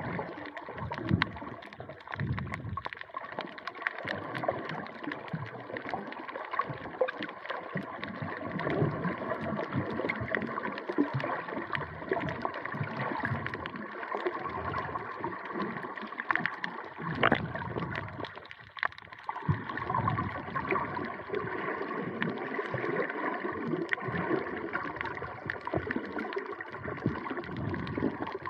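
Water sloshing and gurgling, uneven and continuous, with one sharp knock about two-thirds of the way through.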